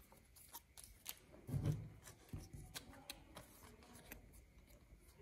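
Faint handling of paper doll cut-out pieces: light paper rustling and scattered small clicks as the parts and joints are fitted together, with a brief low sound about one and a half seconds in.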